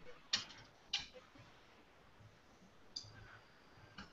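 A spoon clinking against a glass bowl while salsa is scooped out. There are four sharp clicks, and the third has a brief high ring.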